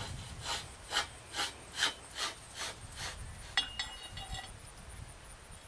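Metal end cap twisted by hand on the end of a galvanized steel pipe, grating in about seven short, even strokes. It is followed by a single metallic clink with a brief ring.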